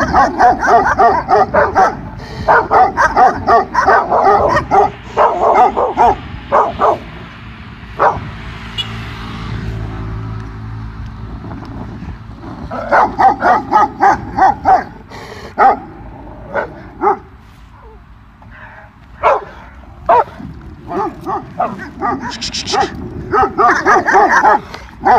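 Several dogs barking in fast runs, with a lull of a few seconds near the middle.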